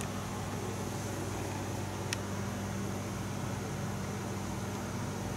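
Steady low hum and hiss of background room noise, like a fan or air conditioner running, with two faint ticks, one at the start and one about two seconds in.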